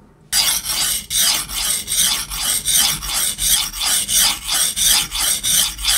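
Steel kitchen knife blade scraped back and forth on a coarse #120 whetstone, wet and muddy. It makes a rasping grind at a quick, even two to three strokes a second.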